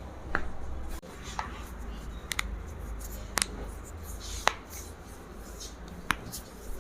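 Joints cracking and popping during a chiropractic spinal adjustment: about seven sharp clicks at irregular intervals, two of them in quick succession near the middle.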